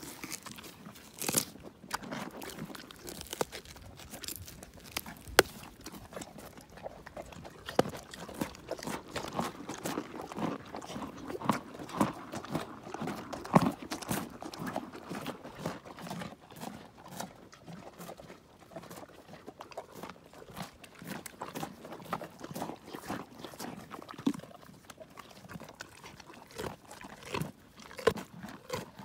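Carrots being crunched and chewed close up by large hoofed animals: an irregular run of sharp, loud crunches.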